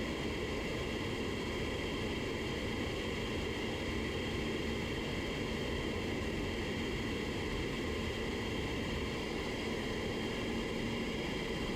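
Steady rushing air noise in an auto paint spray booth, running evenly with no breaks.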